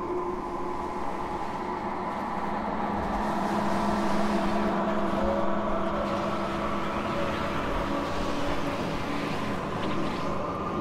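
Experimental drone score: several held tones layered over a dense, rumbling noise bed, swelling slightly about four seconds in.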